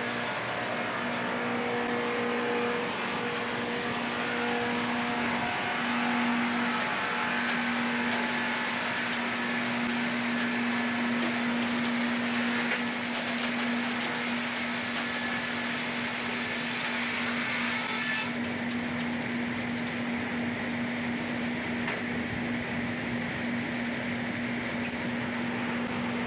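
LogRipper-300 scragg sawmill running while milling cypress logs: a steady mechanical hum under a broad hiss of cutting. The high hiss eases about two-thirds of the way through.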